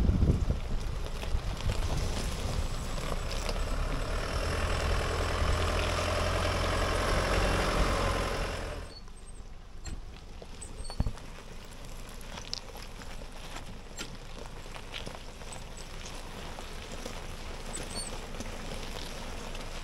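Diesel ute towing an off-road caravan driving slowly over a loose-rock track: a steady low engine hum with tyres crunching on the stones. About nine seconds in it cuts off abruptly to a much quieter outdoor background with scattered small clicks.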